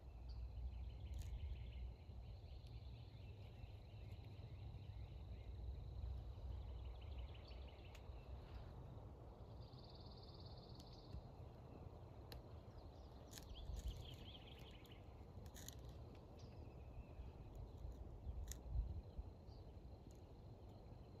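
Quiet woodland ambience: small birds sing high trills and give a buzzy call on and off, with a few sharp ticks, over a steady low rumble.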